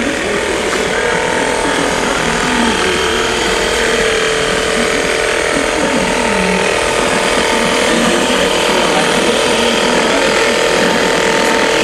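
An electric motor driving an alternator, running steadily with a constant hum and whine.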